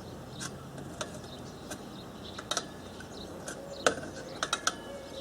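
Scattered metallic clicks and taps from hand tools tightening a bolt on a strimmer handle. The loudest click comes about four seconds in, followed at once by a quick run of three.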